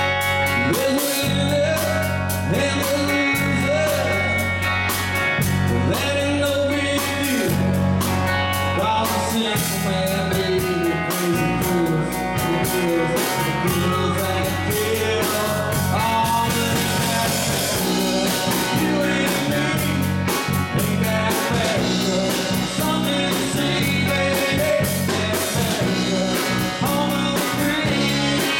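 Live rock band playing amplified electric guitars and electric bass, with a steady beat throughout.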